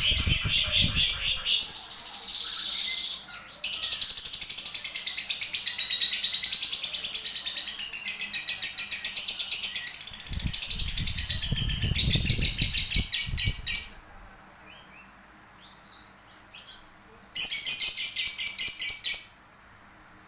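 Lovebird chattering in long, fast, unbroken runs of high trilled notes, stopping twice for a few seconds. A low rumble sits under the song about halfway through.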